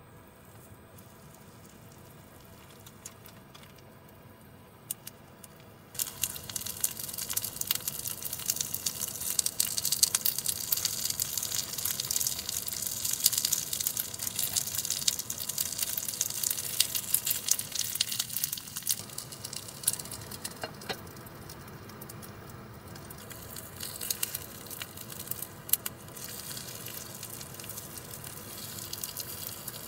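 Gyoza frying in hot oil in a small frying pan, a sizzle with dense crackling that starts suddenly about six seconds in and carries on.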